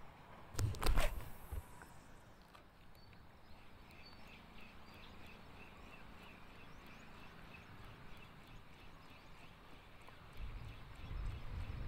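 Fishing reel on an ultralight rod being cranked to bring in line, a faint, even ticking of about four ticks a second. A short cluster of handling knocks comes about a second in, and a low rumble near the end.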